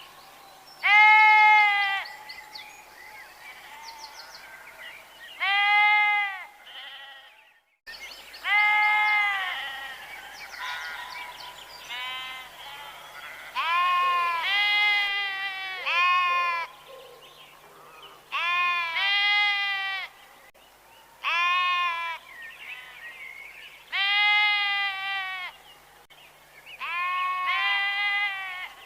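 Several sheep bleating over and over, each bleat about a second long, at different pitches and sometimes overlapping.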